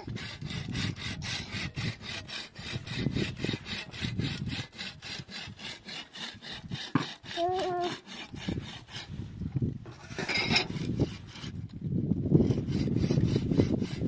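Rapid, even scraping strokes, about five a second, like a blade or rasp worked back and forth over wood or another hard surface, pausing briefly about nine seconds in. A short pitched squeak or cry comes about seven and a half seconds in.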